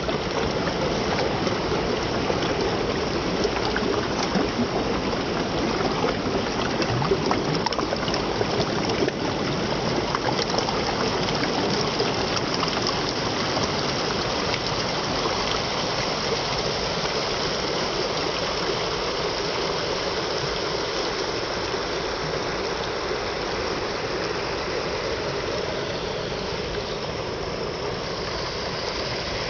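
Waterfall: a steady rush of falling water, a little louder in the first half.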